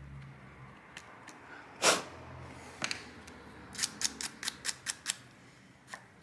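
Sharp clicks and ticks of a small metal tool, a thin flathead screwdriver, picking and scraping leftover glass shards out of the adhesive around a phone's rear camera lens recess. There is one loud click about two seconds in and a quick run of about eight clicks a little later.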